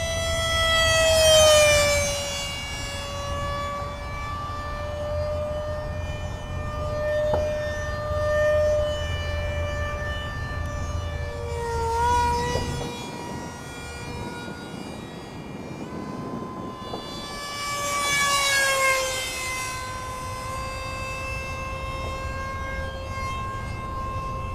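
The 64 mm electric ducted fan of a BlitzRCWorks F-117 RC jet whining in flight. The tone swells and its pitch falls as the jet passes close, once about a second in and again past the middle.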